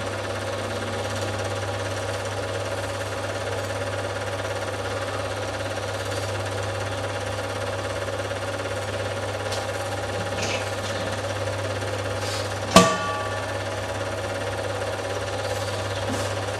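Film projector running: a steady mechanical whirr with a low hum. A single sharp click about 13 seconds in.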